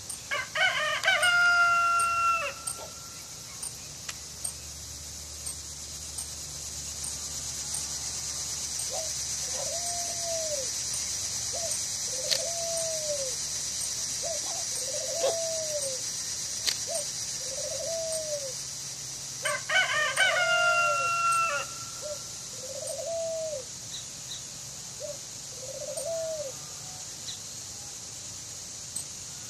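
A rooster crowing twice, once near the start and again about twenty seconds later. Between the crows comes a run of short rising-and-falling calls, about one every two seconds.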